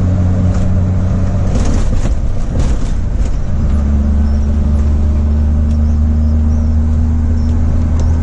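Truck engine droning steadily inside the cab while driving, with road noise. About three and a half seconds in, the engine note changes and settles lower and steadier.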